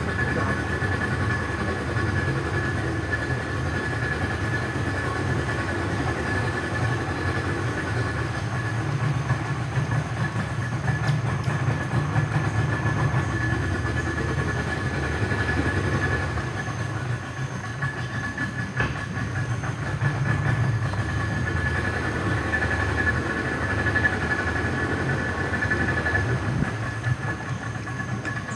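Outboard motor of a small boat running steadily as it moves through a narrow creek, a continuous low rumble with a steady high whine above it.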